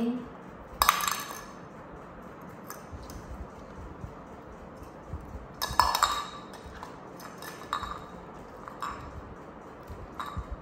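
Glassware clinking: a handful of separate sharp clinks of a small cup and bottles being handled, the loudest about a second in and about six seconds in, with lighter ones after.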